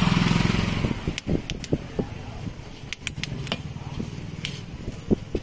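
A passing motor vehicle's low hum fades out within the first second, followed by scattered light metallic clicks and clinks.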